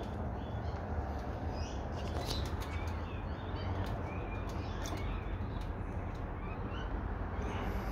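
Australian magpies calling, short chirping notes scattered throughout, over a steady low rumble.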